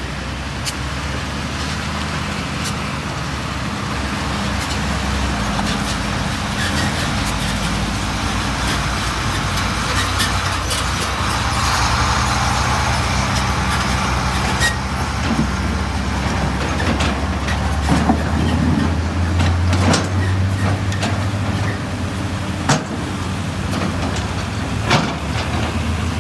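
Excavator diesel engine running and working, its pitch stepping up around the middle and again later, with a hiss through the middle and scattered clanks and knocks.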